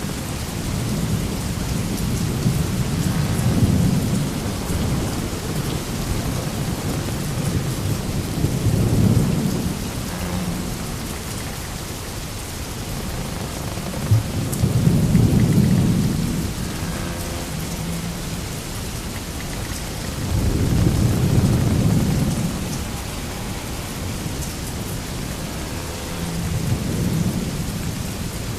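Sailing-ship sound-effect ambience: a steady rushing noise, with a deep rumbling surge that swells up and dies away about every six seconds.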